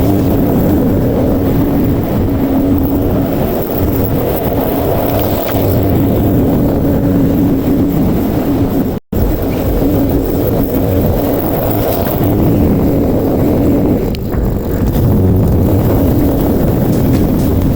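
Lawn mower engine running steadily under load, with the sound cutting out for an instant about halfway through.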